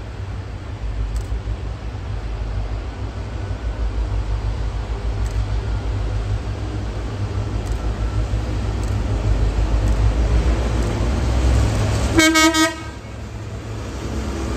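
RailFirst VL-class diesel locomotives hauling a freight train slowly, their engines rumbling louder as they draw near. Near the end comes one short blast of the locomotive horn, a chord of several tones about half a second long.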